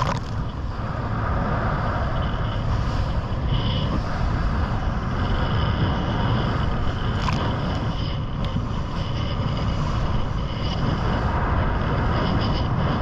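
Motorboat under way: a steady engine drone mixed with wind and rushing water.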